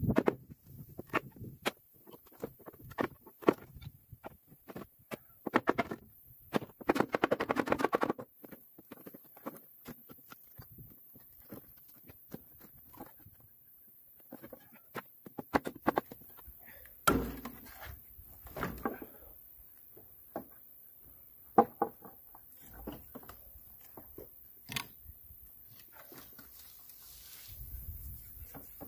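Irregular knocks, taps and clicks of hand work on a wooden well frame and its log windlass, with a second or so of rapid scraping strokes about seven seconds in and a heavier thunk about seventeen seconds in.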